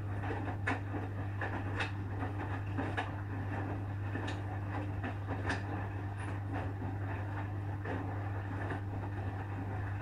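Asko front-loading washing machine tumbling a load of clothes at wash speed: a steady motor and drum hum with light knocks and clicks about once a second as the laundry drops inside the turning drum.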